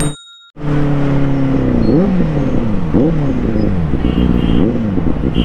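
Benelli 600 motorcycle's inline-four engine running steadily, then revved about three times roughly a second apart, each blip shooting up in pitch and falling back. The sound cuts out briefly at the very start.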